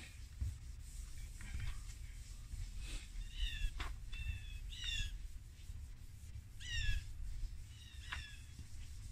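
A bird calling: short, falling chirps in quick groups of two or three, repeated several times, with a few brief scrapes between them.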